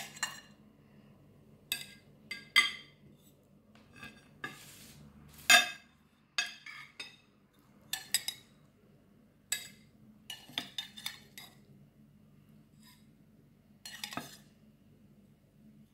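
Serving utensil clinking and scraping against plates as food is dished out: a dozen or so short, irregular clinks, the loudest about five and a half seconds in.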